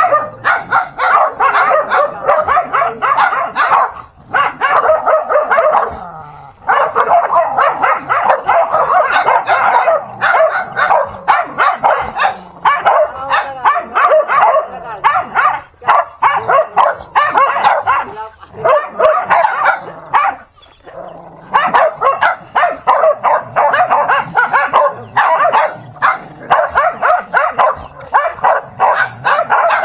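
Dogs barking and yapping almost without a break as they scuffle, with brief lulls about four, six and twenty seconds in.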